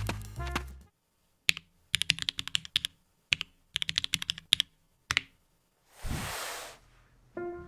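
Typing on a GamaKay K77 mechanical keyboard with Gateron Black linear switches: short bursts of rapid keystroke clicks in several runs, then a short hiss about six seconds in.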